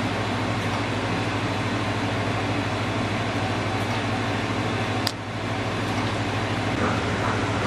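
Steady low mechanical hum with a hiss over it, and a single sharp click about five seconds in.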